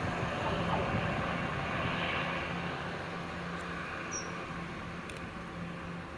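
Diesel train engine running with a steady hum and rail noise, slowly fading. A short high chirp comes about four seconds in.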